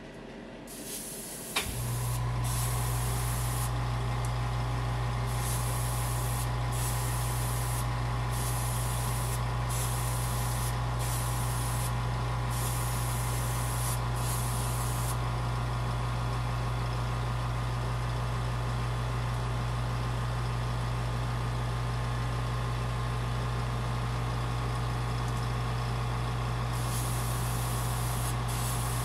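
Airbrush hissing in many short bursts as it sprays 2K clear coat, over the first fifteen seconds and again near the end. About two seconds in, a motor clicks on and hums steadily underneath.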